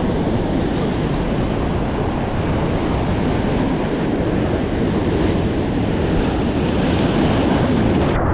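Surf washing against a rocky shore, with heavy wind buffeting the microphone. The higher hiss cuts off suddenly near the end.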